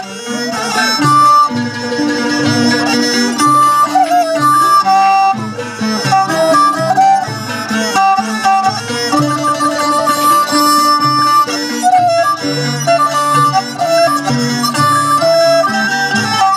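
Northern Thai folk ensemble playing a continuous tune: plucked sueng lutes and a bowed salo fiddle, with a held melody line stepping between notes over a steady lower accompaniment.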